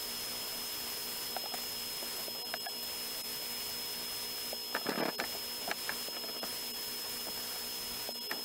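Sandblasting cabinet running with its suction on: a steady hiss and hum, with scattered light clicks and a short burst of knocks about five seconds in.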